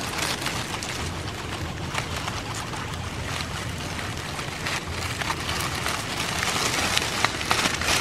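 Grass blades and leaves rustling close up as a hand and sleeved arm push through them, with many small crackles and snaps.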